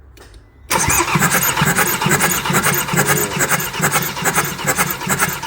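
Ford Transit 2.2 L diesel engine cranking over on the starter motor for a compression test, starting just under a second in with a fast, even rhythmic chugging of compression strokes. The cylinder being tested shows about 320 on the gauge, a healthy reading after the snapped timing chain.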